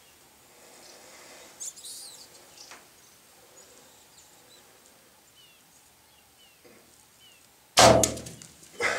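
Faint bird chirps, then near the end a compound bow shot: one sharp, loud crack of the string's release and the arrow striking the kudu. A second burst of noise follows about a second later as the hit kudu bolts.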